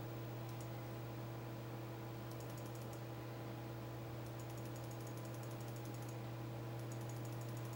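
Steady low electrical hum with several faint tones above it, and short runs of rapid, faint, high-pitched ticking that start and stop a few times.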